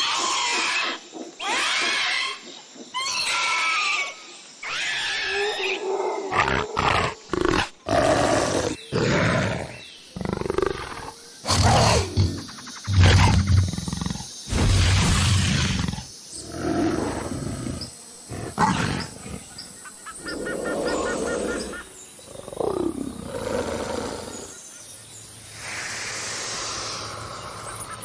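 Velociraptor sound effects: a string of creature calls, shrill screeches whose pitch bends at first, then deeper roars with a heavy low end in the middle.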